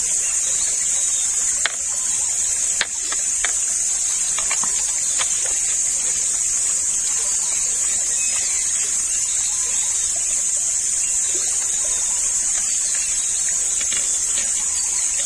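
A steady, high-pitched drone of insects, with scattered light clicks and creaks from bamboo poles and vine being lashed together, most of them in the first five seconds.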